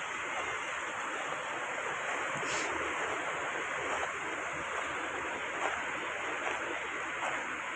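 Sea surf washing onto the shore: a steady rush of waves.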